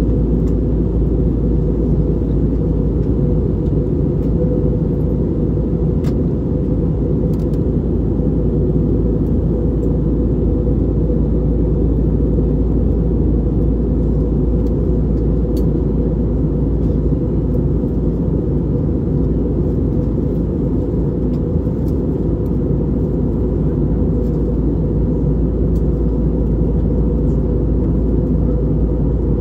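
Steady low cabin rumble of an Airbus A320neo in flight, the airflow and its two CFM LEAP-1A turbofan engines heard from inside the cabin at a window seat.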